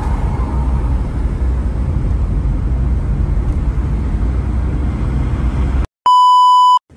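Steady low rumble of road and engine noise heard inside a moving car. It cuts off abruptly about six seconds in, and a short steady electronic beep follows for under a second.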